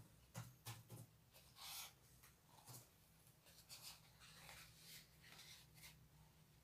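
Faint scissors snipping through a sheet of EVA foam: short, scratchy cuts coming irregularly, roughly every half second, over a low steady hum.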